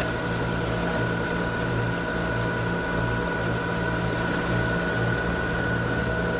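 Motorboat engine running steadily under way, a constant hum with a thin high whine, over the rush of water from its wake.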